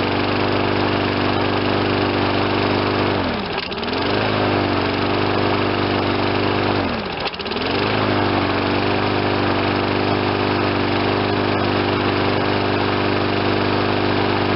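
Briggs and Stratton 6.25 single-cylinder four-stroke mower engine, freshly fitted with a new carburetor and still cold, running steadily. Twice, about 3.5 and 7 seconds in, its speed dips sharply and climbs straight back as the kill handle is briefly let off and pulled in again, the governor recovering the speed properly.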